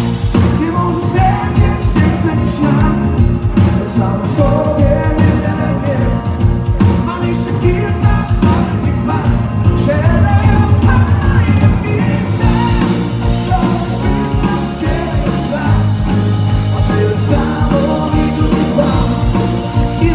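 Live band playing a pop-rock song: a male singer singing over keyboard, guitars and a drum kit.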